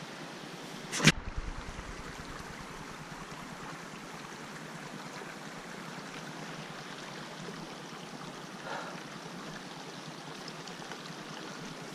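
Steady rushing noise, with a sharp click about a second in and a brief soft rustle about nine seconds in.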